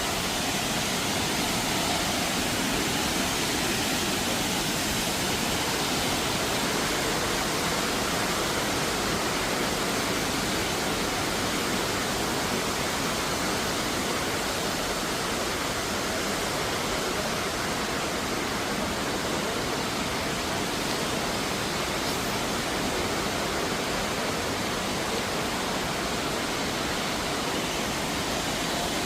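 Steady, unbroken rush of flowing or falling water, even across high and low pitches.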